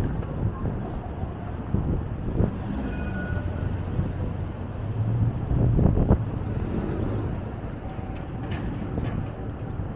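City street traffic with wind buffeting the microphone: a steady low rumble that swells about five to six seconds in.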